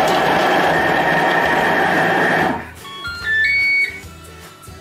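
Thermomix food processor chopping vegetables at speed 4, a loud steady whirring that cuts off abruptly about two and a half seconds in as the 4-second program ends. A short run of beeping notes follows, then quiet background music.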